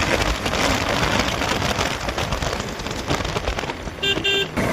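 Wind rushing over the microphone while riding a motorbike, with two short beeps near the end.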